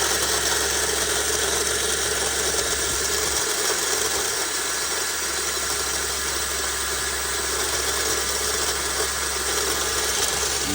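2007 Suzuki Vitara 1.6 VVT engine idling steadily with a grinding noise, which the owner suspects comes from the AC compressor.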